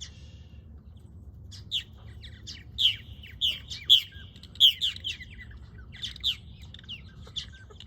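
Purple martins chirping: many short, quick calls from several birds, coming thickest in the middle of the stretch and thinning toward the end.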